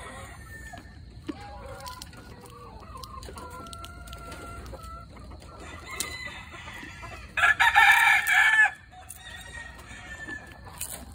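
Chickens clucking and calling, then a rooster crows once, loudly, about seven and a half seconds in, the crow lasting a little over a second.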